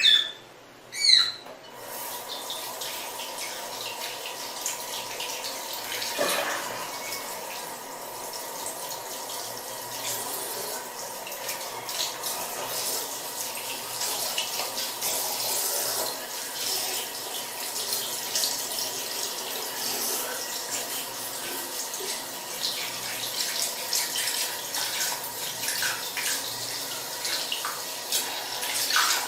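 Water running steadily, with small splashes and clicks throughout. Right at the start, a short high-pitched call falls in pitch.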